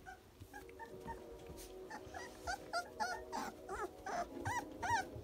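Rottweiler whimpering: short, high cries that rise and fall. They are faint and sparse at first, then come quicker and louder, several a second, over the last three seconds.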